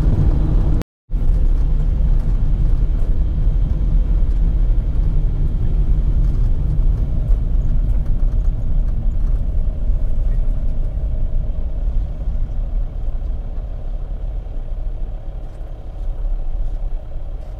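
Steady low rumble of a car driving, engine and road noise heard from inside the vehicle. It cuts out to silence for an instant about a second in and is a little quieter near the end.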